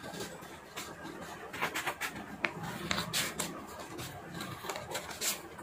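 Scissors snipping through a folded sheet of paper: a run of short, crisp snips at an uneven pace, trimming the excess strip off the sheet.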